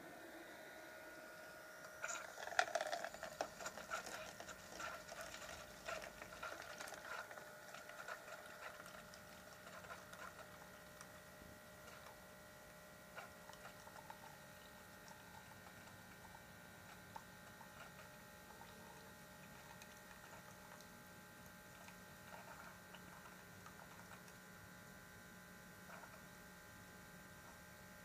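Keurig single-serve coffee maker brewing: a steady pump hum with spitting, gurgling crackle that starts about two seconds in, is loudest at first, then thins out to scattered clicks.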